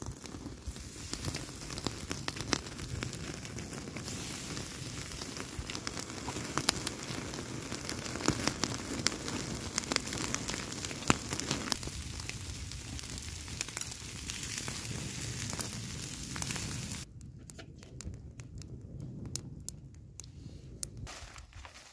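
Campfire crackling, with frequent sharp pops over a steady hiss; about seventeen seconds in it changes suddenly to a quieter, sparser crackle.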